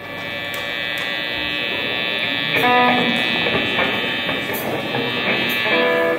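Live rock band's amplified electric guitars and keyboards holding one steady chord, with a few short picked electric guitar notes standing out about two and a half seconds in and again near the end.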